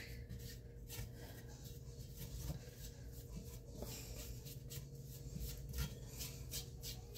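Spatula scraping and stirring a flour-and-butter roux around the bottom of an enamelled Dutch oven: a run of short scrapes, coming faster in the second half, over a steady low hum.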